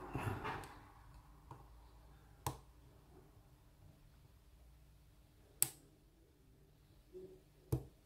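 A steel lock pick and tension wrench working the pins inside a lock cylinder, making a few sparse, sharp metallic clicks. The loudest click comes about halfway, and another comes near the end.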